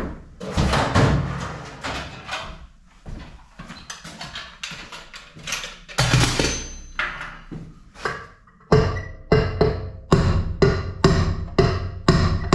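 Background music with percussion. A quick, steady drum beat sets in about nine seconds in.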